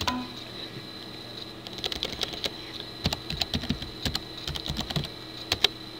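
Typing on a computer keyboard: irregular keystrokes start about a second and a half in and continue in quick, uneven runs.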